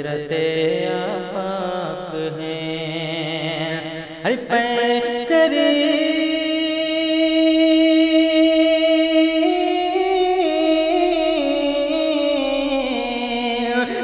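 Wordless sung opening of an Urdu manqabat (devotional poem): a voice drawing out long notes, wavering at first, then holding one long line from about four seconds in that moves up and down in small steps.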